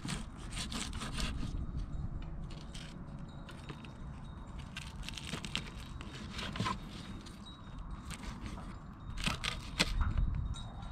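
Kitchen knife cutting and scraping through charred grilled fish on a bamboo cutting board: a run of short scrapes and crackles of the skin, with taps of the blade on the wood, busiest near the end.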